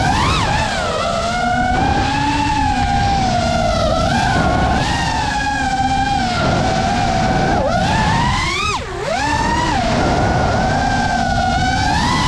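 FPV drone's brushless motors and propellers whining loudly, the pitch sweeping up and down with the throttle. Near the start the pitch climbs out of a dip. About nine seconds in the whine drops sharply and briefly goes quieter as the throttle is cut, then climbs back as the throttle is punched again.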